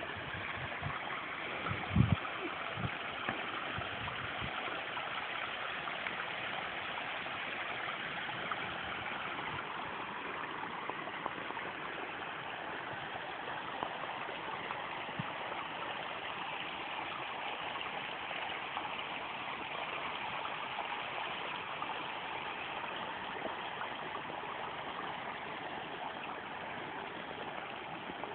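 Steady rush of water pouring over a man-made rock waterfall at full flow, with a few brief low thumps about two seconds in.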